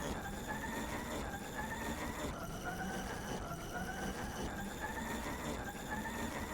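Cartoon snoring clip, heavily pitch-shifted and distorted by meme audio effects. It comes as a run of rising tones, about one a second, over a harsh, noisy buzz.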